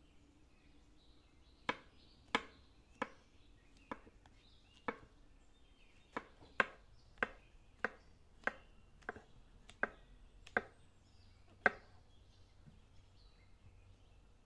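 Chef's knife slicing button mushrooms directly on a stone worktop: about fourteen sharp knocks of the blade on the stone, starting about two seconds in and coming roughly one to two a second at an uneven pace.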